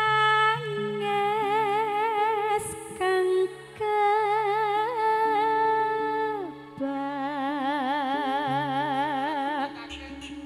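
A woman sings through a microphone and PA, holding long, slow notes with heavy vibrato in a few drawn-out phrases. Steady held backing chords sound underneath. The vibrato grows faster in the last phrase.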